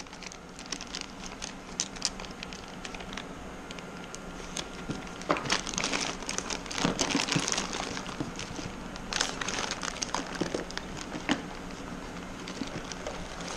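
Plastic bags crinkling and rustling as hands rummage through a cardboard box of bagged engine parts, with scattered short clicks, busiest in the middle.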